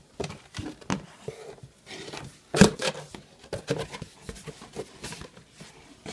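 A cardboard shipping box and its packing being handled and opened: scattered knocks and rubbing, with one loud thump about two and a half seconds in.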